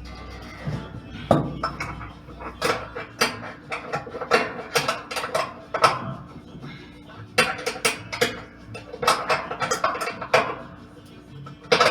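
Irregular metal clinks and knocks, in quick clusters, of tools and parts being handled during a washing-machine transmission repair.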